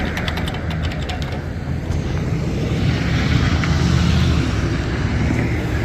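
Road traffic going by at a street intersection, a steady low rumble. A quick run of sharp clicks comes in the first second.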